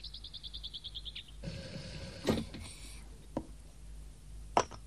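A bird's rapid trill of high chirps, ending about a second in. Then a short hiss and a few sharp clinks of china teapot and cups, the loudest near the end.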